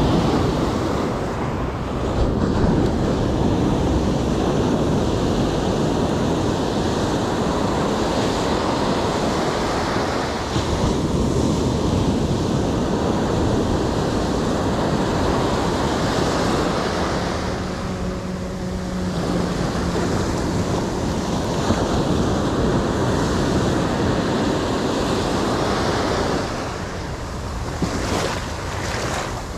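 Ocean surf washing in and breaking against the rocks in continuous swells, with wind buffeting the microphone.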